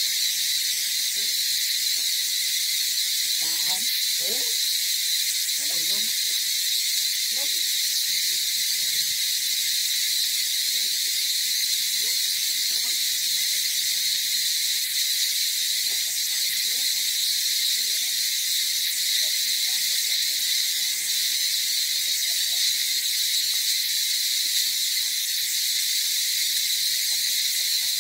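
Steady insect chorus, a constant high-pitched drone that does not change. A few faint short sounds low down in the first several seconds.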